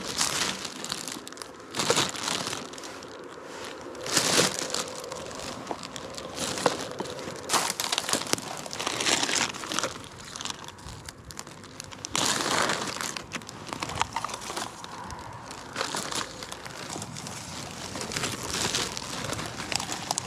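Thin plastic garbage bag crinkling and rustling as gloved hands open it out and stuff trash into it, in short bouts every few seconds.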